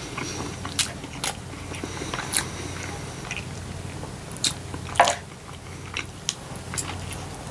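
Close-miked chewing of a bacon-and-avocado burger: wet mouth smacks and a few sharp crunches scattered through, the loudest about five seconds in.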